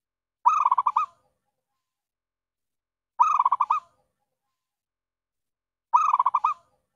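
Zebra dove (perkutut) song: three short phrases of quick stuttering coos, one about every two and a half seconds.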